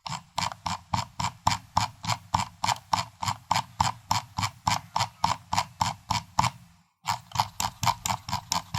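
Computer mouse scroll wheel turned notch by notch: evenly spaced clicks, about three a second, with a short break about seven seconds in.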